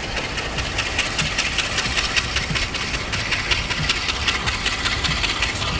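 Class M10 diesel locomotive's engine running steadily as it hauls the train slowly out of the station, under a rapid, constant clatter.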